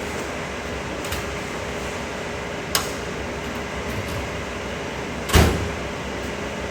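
Metal welding-cart drawers and parts being handled: a light click, a sharper click, then a loud metallic clank with a short ring about five seconds in, over a steady background hum.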